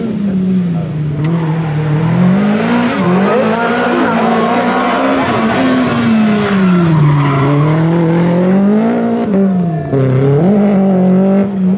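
Rally car engine running hard, its pitch falling and climbing again several times as the driver lifts, brakes and accelerates through the corners, loud throughout.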